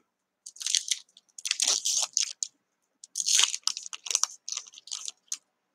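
Foil wrapper of a Topps Chrome baseball card pack crinkling and tearing as it is opened and peeled back from the cards, in a string of short bursts.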